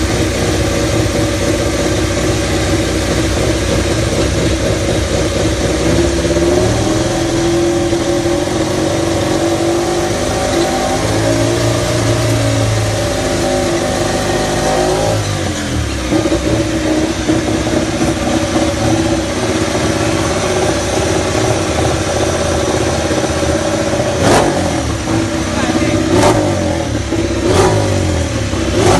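Ducati motorcycle engine revving, loud throughout, its pitch rising and falling in long sweeps. A few sharp short cracks come near the end.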